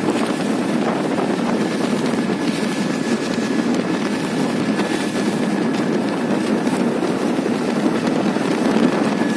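Motorboat engine running steadily under way, with wind noise on the microphone and a faint steady whine above it.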